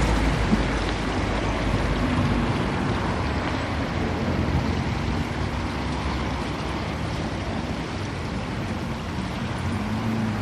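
Small brook of pond outflow water babbling as it runs down a roadside ditch, a steady rush of water.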